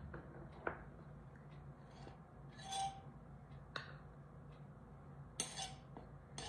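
A metal measuring cup clinking against a glass jar as flour is scooped out and levelled off with a knife: a few faint, scattered clinks and scrapes.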